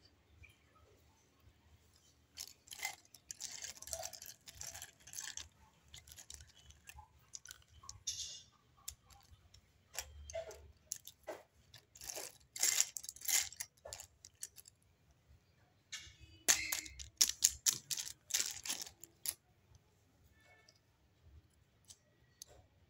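Small plastic toys clicking and clattering against one another as hands rummage through a pile of them, in three spells of rapid clatter with quieter gaps between.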